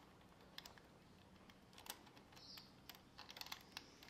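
Faint, irregular small metallic clicks from the front-sprocket nut and splined lock washer as they are worked off the countershaft by hand, with a cluster of quick clicks past the middle.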